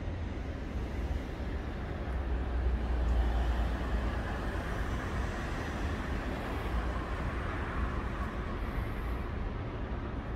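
City traffic rumble: a steady, even wash of passing road traffic, swelling briefly a few seconds in.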